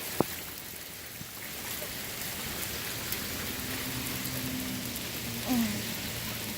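Steady rain falling, an even hiss, with one sharp click about a quarter second in.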